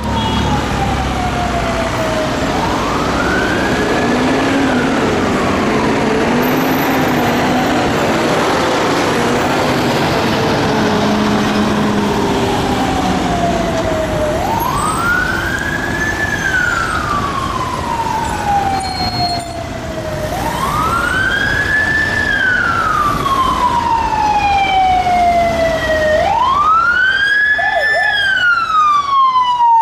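Police vehicle sirens sounding a slow wail, each cycle rising quickly and falling slowly, with more than one siren overlapping near the end as the convoy approaches. Road traffic noise runs underneath.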